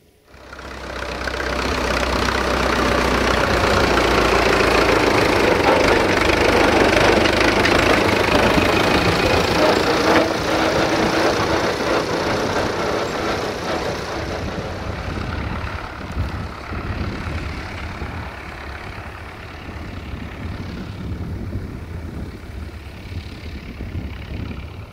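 Diesel engine of a CFR 060-DA (LDE2100) diesel-electric locomotive, a Sulzer 12LDA28, running loud and steady with a deep throb. It swells over the first few seconds and slowly fades over the second half.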